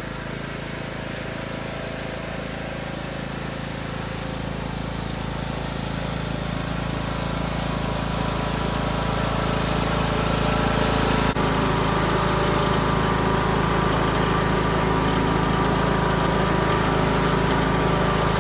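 Husqvarna YTH18542 riding lawn mower's 18.5-horsepower engine running steadily. It grows louder over about ten seconds, then holds steady, with one brief break a little past the middle.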